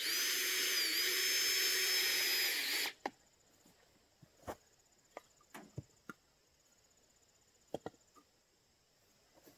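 A power tool runs steadily for about three seconds, its whine dipping briefly about a second in, then cuts off. Scattered short knocks and clicks follow.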